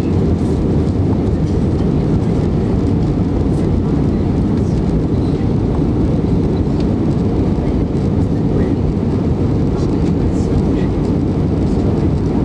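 Jet airliner cabin noise in flight: a steady, deep roar of engines and airflow that holds at one level throughout.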